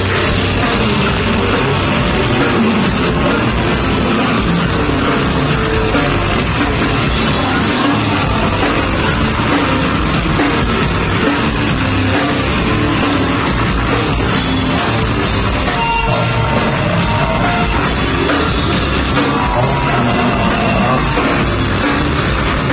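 A live heavy rock band playing loud, with drums and distorted guitar, heard from the audience as a dense, unbroken wall of sound.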